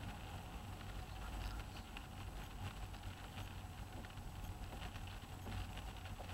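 Rain pattering on a car windscreen as a scatter of small taps, heard inside the cabin over the steady low hum of the moving car's engine and tyres.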